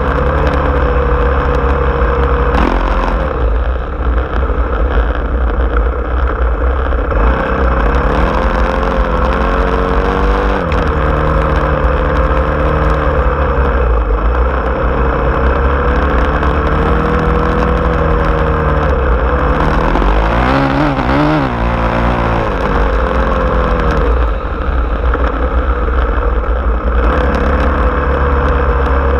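Small off-road vehicle's engine running under way, its pitch rising and falling several times as the throttle is opened and eased, over a steady low rumble.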